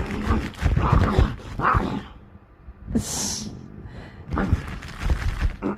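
Dog growling in rough bursts while playing with a toy, with a short high hissy burst about three seconds in.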